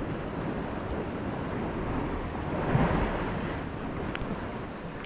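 Small waves washing on the shore of a flat calm sea, with wind buffeting the microphone; one wave swells louder about three seconds in.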